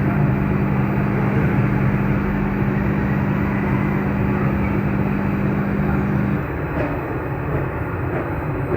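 Steady rushing machine-like background noise with a low hum that cuts off about six seconds in.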